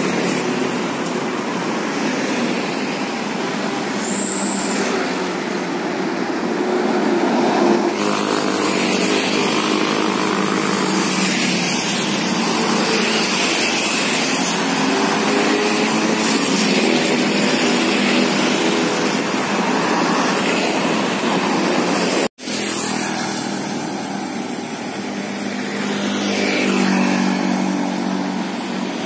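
Busy road traffic passing close by: motorcycles, cars, trucks and a bus driving past, with engine notes swelling and fading over steady tyre noise. The sound cuts out for an instant about two-thirds of the way through.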